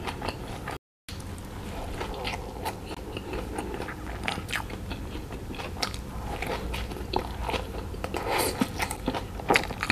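Close-miked chewing of a soft-bun fish cheese burger, with wet mouth clicks and small crunches, and another bite taken near the end. The sound cuts out completely for a moment about a second in.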